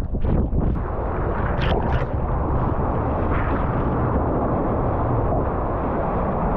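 Strong wind buffeting an action-camera microphone together with rushing, breaking surf, a heavy steady rumble, with two brief hisses about two seconds in.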